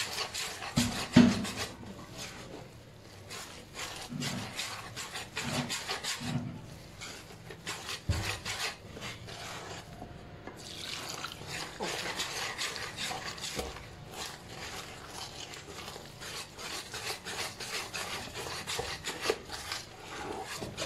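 Wire whisk beating a thick gram-flour and spice batter in a stainless steel bowl: rapid, continuous scraping strokes against the metal. A louder knock about a second in.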